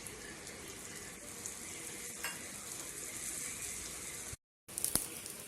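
Urad dal and egg omelette batter frying in oil in a pan, a steady sizzle, cut off by a brief silent gap near the end.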